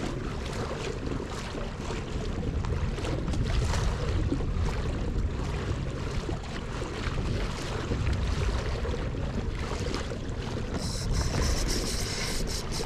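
Wind buffeting the microphone and water washing along the hull of a fishing kayak under way. About eleven seconds in, a fast ratcheting buzz starts: a spinning reel's drag paying out line as a barracuda takes the bait.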